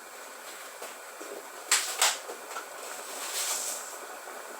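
Kitchen handling sounds while a pot of tomato stew is seasoned with a stock cube and salt: two sharp taps about a third of a second apart, a short rustle a second later, over a low steady hiss.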